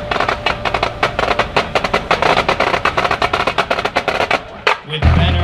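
Marching band percussion playing a fast run of sharp, dry strokes that thickens toward the middle, then breaks off just before a loud, low sustained note from the band comes in near the end.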